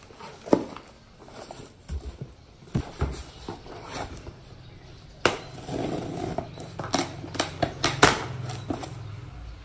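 A cardboard shipping box being handled and opened by hand: a run of sharp taps, knocks and scraping, rustling cardboard as the flaps are pulled open.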